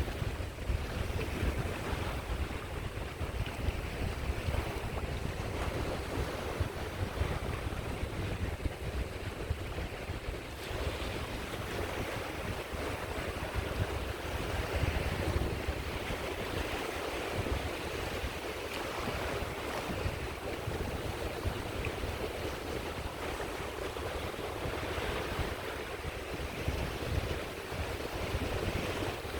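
Sea waves washing onto the shore in a steady, unbroken surf, with wind buffeting the microphone as a low rumble.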